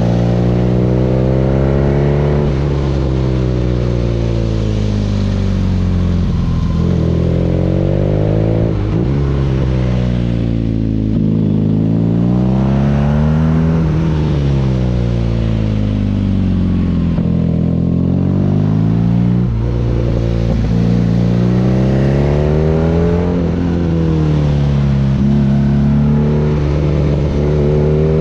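BMW R nineT's boxer twin breathing through an Akrapovic exhaust, revving up and dropping back again and again as the motorcycle accelerates and slows, its pitch rising and falling every few seconds.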